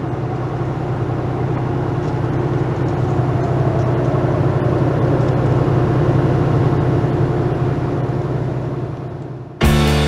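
An engine running steadily with a low hum, swelling a little and then fading out near the end, where music starts.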